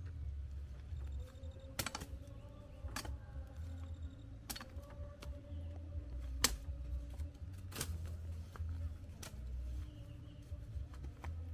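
A machete chopping and woody plant stems cracking and snapping: about six sharp cracks at irregular intervals of one to two seconds, over a steady low rumble.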